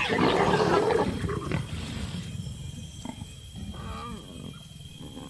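Mating leopards snarling and growling as the pair separate: a loud, harsh snarl in the first second and a half that fades away, then quieter short growls about three and four seconds in.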